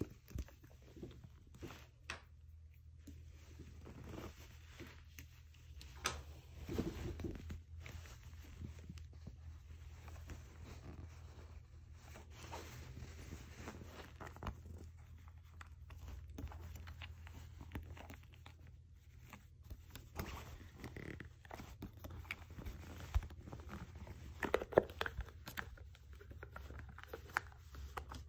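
Handling noise of a small round metal tin on bedding: irregular scraping, rustling and small clicks, with a few sharper clicks around 6 seconds in and again near the end.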